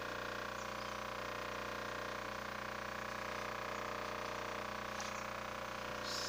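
A steady hum made of many even tones, with light water splashing near the end from a hand moving through a tub of water.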